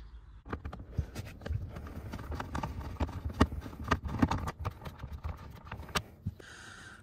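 Torx screwdriver undoing the T15 screws of the interior cover over the blower motor: a quick, irregular run of small clicks and knocks that stops about six seconds in.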